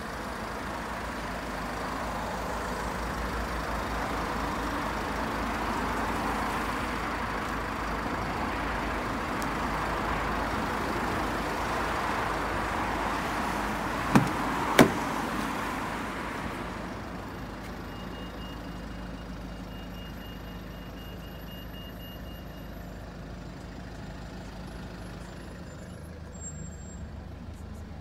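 Steady hiss and rumble of road traffic that eases off just past halfway, with two sharp clicks about halfway through as the car door is worked.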